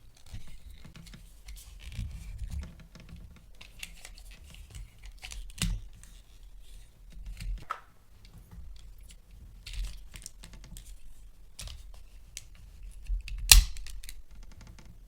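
Small plastic toys and packaging being handled: irregular light clicks, taps and rustling, with one sharp click about 13 seconds in.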